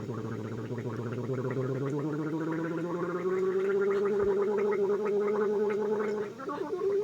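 A person gargling, holding one voiced tone through the water. The pitch rises slowly and then holds steady, with a short break about six seconds in.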